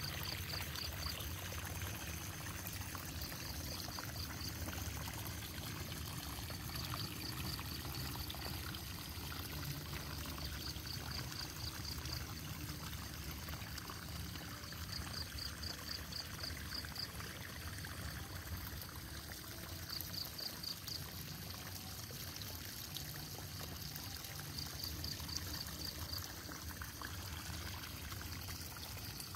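Irrigation water trickling steadily through a flooded rice paddy. Over it, a high, rapid call of about half a dozen notes repeats every three to five seconds.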